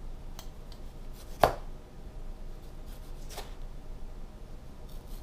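Kitchen knife thinly slicing a tomato on a plastic cutting board: several short, sharp knocks of the blade meeting the board, the loudest about a second and a half in.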